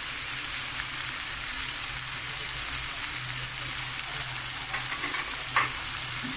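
Chopped tomatoes and green chillies frying in oil in a pan, a steady sizzle. A single brief tap sounds about five and a half seconds in.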